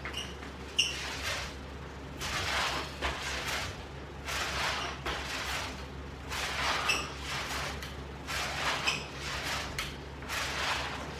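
Ab roller wheel rolling out and back across the floor in repeated rollouts, a swell of rolling noise about every two seconds with a few brief squeaks, over a steady low hum.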